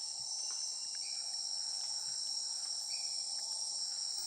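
Dense, steady chorus of rainforest insects buzzing high-pitched without a break. A short chirp from another caller repeats about once a second above it.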